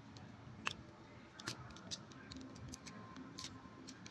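Scattered light clicks and taps from a smartphone and its replacement LCD assembly being handled and fitted by hand, about four small clicks spread through the moment.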